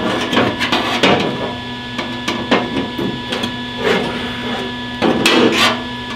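A tool knocking and tapping irregularly against the truck's sheet-steel panel as a piece of metal is bent out of the way, with the strongest strikes about a second in and a quick pair near the end.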